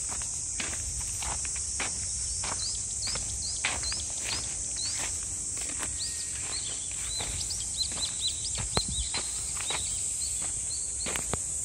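Footsteps through a field under a steady, high insect drone. From about two seconds in, a bird gives a run of short chirps, several a second, which die away near the end.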